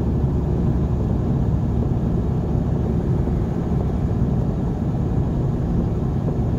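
Steady low road and engine rumble inside a vehicle cruising at highway speed.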